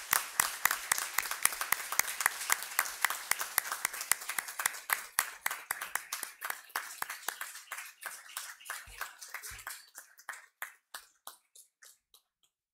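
Audience applauding. The clapping thins out about eight seconds in and dies away near the end, with two low thumps around nine seconds in.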